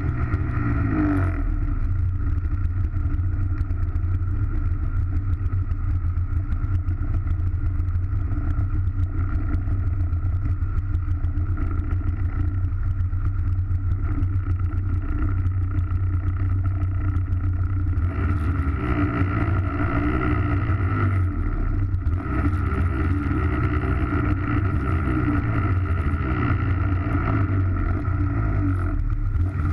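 Polaris snowmobile engine running, heard from a camera on the sled's hood: a steady drone whose pitch starts rising and falling with the throttle about two-thirds of the way in.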